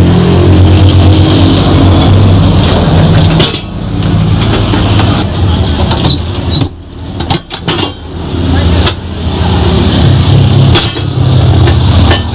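A steady engine rumble runs throughout. A few sharp metallic knocks come in the middle and toward the end, from an iron tyre lever being worked against a tyre.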